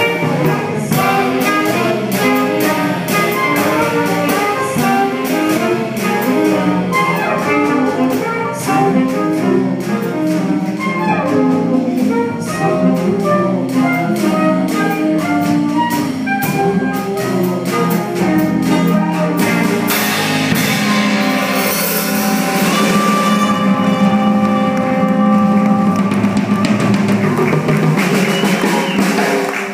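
Live jazz band playing an instrumental passage with a trumpet and drum-kit cymbals, in quick runs of notes. About twenty seconds in it moves to longer held notes over a wash of cymbals.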